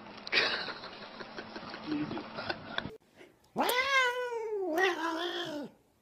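About three seconds of outdoor noise with a sharp knock near the start. Then a domestic cat gives a long, drawn-out meow of about two seconds that rises, wavers and falls away.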